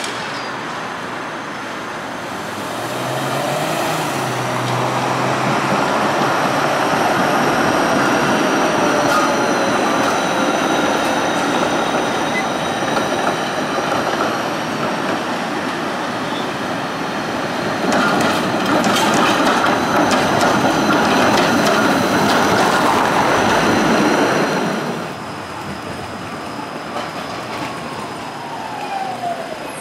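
Tram running on its rails. The noise swells about three seconds in, with steady high wheel squeal over the rumble and a burst of wheel clacks about eighteen seconds in. It drops away about twenty-five seconds in.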